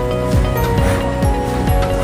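Background music with a steady beat: low drum hits about twice a second under held synth tones.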